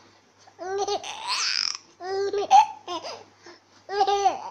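A baby laughing and babbling in short, high-pitched bouts that repeat every second or so.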